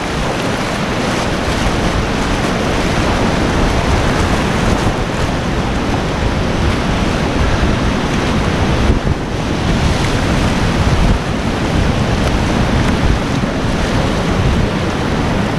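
Loud, steady rush of whitewater rapids heard close up from a kayak running through them, with wind buffeting the microphone.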